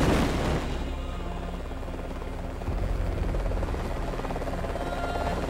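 A loud burst that dies away within about half a second, then a steady low rumble with a fast flutter.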